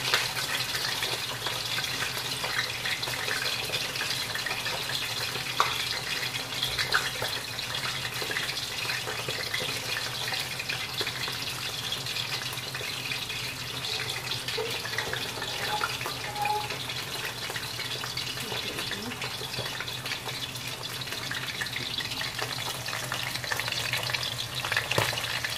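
A whole fish shallow-frying in hot oil in a wok: steady sizzling with crackling spatter.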